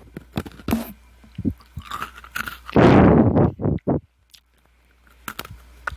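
Close-up crunching of an Oreo cookie being bitten and chewed with the mouth open. Two loud crunches come about three seconds in, with smaller clicks of chewing before and after.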